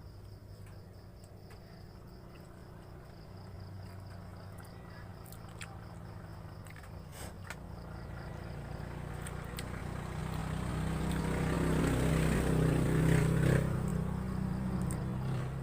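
A motor vehicle's engine passing, growing slowly louder to a peak near the end and then easing off, over the steady chirring of crickets.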